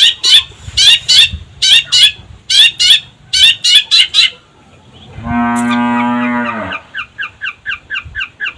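Long-tailed shrike (cendet) giving harsh, scratchy calls repeated about twice a second. After a short pause comes one long, low, steady call lasting about a second and a half, then rapid short chirps about five a second.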